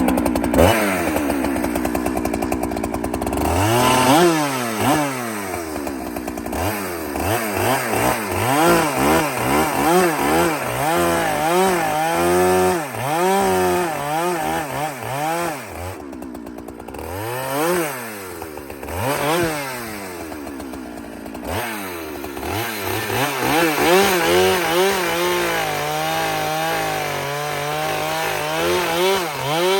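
Husqvarna 395 XP two-stroke chainsaw running, its revs rising and falling again and again as the throttle is feathered rather than held wide open while the new saw breaks in, then holding a steadier speed near the end.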